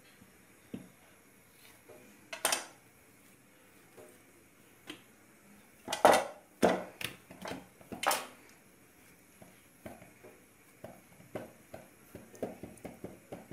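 Scattered knocks and clatter from a knife and bread dough being handled on a wooden board, loudest about six and eight seconds in. Near the end comes a run of quicker, softer pats as the dough is pressed flat to knock the air out of it.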